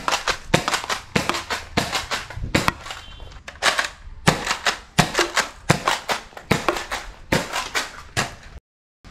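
Toy foam blaster shots and foam rounds striking a handheld plate target: a rapid run of sharp snaps and pops, about two to three a second, that cuts off suddenly near the end.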